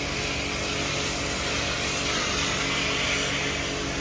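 Self-service car wash equipment running: a steady hiss over a low motor hum.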